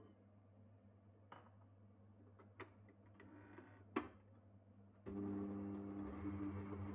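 A few light clicks and a sharp knock, then about five seconds in a stand mixer's motor starts and runs steadily, its balloon whisk beating a batter in a steel bowl.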